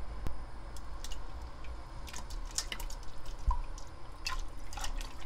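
Drips and small splashes of liquid as thick, jelly-like beef bone broth (sagol) is tipped and rinsed from a glass bowl into a pot of stock, in scattered short ticks.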